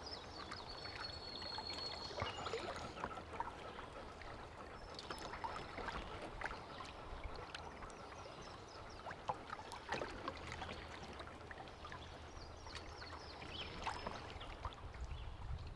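Quiet water trickling and lapping around a canoe as it is paddled along a slow river, with scattered small drips and splashes.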